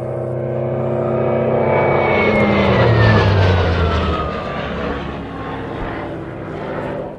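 An aircraft flying low past. Its engine sound swells to a peak about three seconds in, then falls away, dropping in pitch as it passes.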